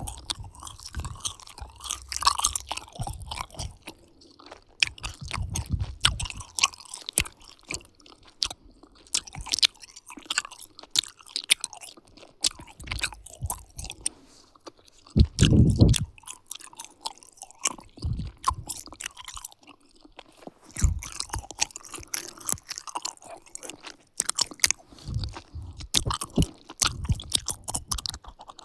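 Person chewing gum: uneven wet smacks and clicks of the mouth, with one short, louder low sound a little past halfway.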